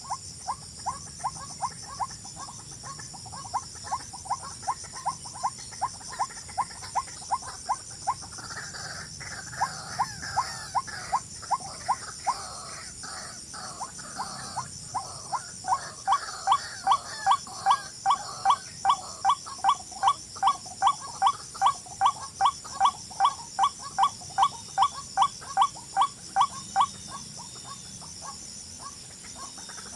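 An animal call repeated about two to three times a second as short notes at much the same pitch. The calls grow louder about halfway through, then stop shortly before the end. A steady high-pitched insect chorus runs underneath.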